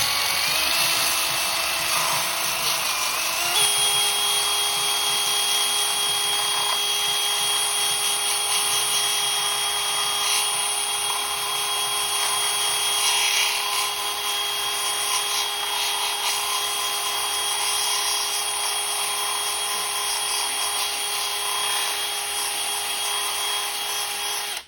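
Handheld rotary tool running at high speed, grinding a lip in a scooter battery housing down flush. Its motor whine climbs in pitch over the first few seconds, then holds steady over the grinding hiss, and stops suddenly at the end.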